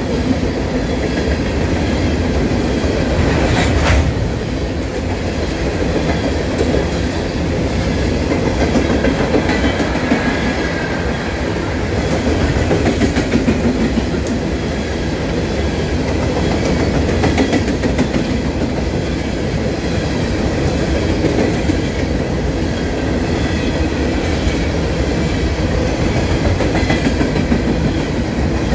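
Steel wheels of a long string of freight coal hopper cars rolling past on the rails: a steady rumble with clickety-clack from the rail joints, and a single sharp clank about four seconds in.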